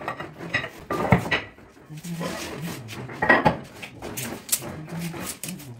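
Granite strips and hand tools being handled on a granite countertop: a series of hard clinks and knocks of stone on stone, the loudest about a second in and about three and a half seconds in.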